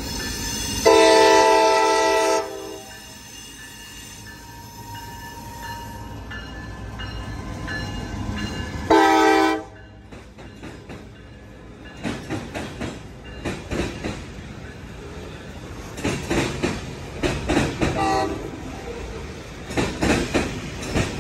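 A CSX freight locomotive sounds its horn with one long chord blast and, about 8 seconds later, one short blast. Then the boxcars roll past, their wheels clicking over the rail joints in quick clusters as each truck passes.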